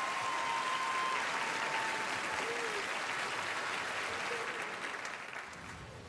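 Studio audience applauding, dying away over the last second or two.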